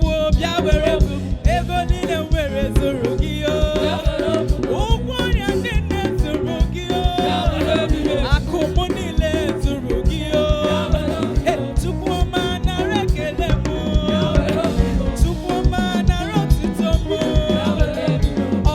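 Upbeat African gospel praise music played live by a band: drum kit and percussion keep a quick, steady dance beat under melodic lines and singing.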